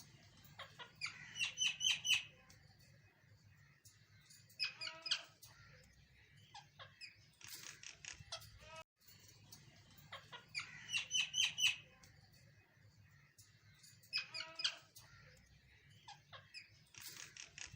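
Birds chirping in short groups of quick, repeated calls, each group about a second long and coming back every few seconds.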